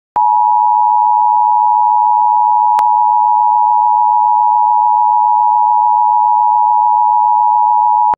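Emergency Alert System attention signal, recreated for a mock alert: two steady tones sounded together (853 and 960 Hz), held for about eight seconds. It announces an emergency warning, here a tornado warning.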